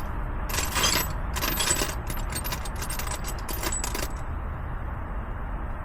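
Loose metal sockets and hand tools clinking and rattling as they are rummaged through, stopping about two-thirds of the way in.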